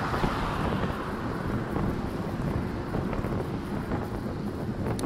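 Wind rushing over a bicycle-mounted camera's microphone while riding, with a steady rumble of road and traffic noise.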